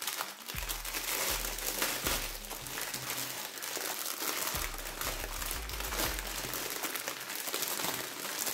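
Clear plastic packaging crinkling and crackling as it is handled and crumpled by hand.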